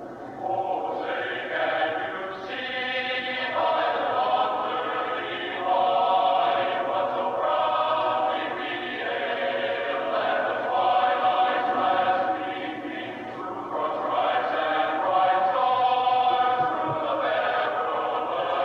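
A choir singing slow, held chords in long phrases, coming in about half a second in.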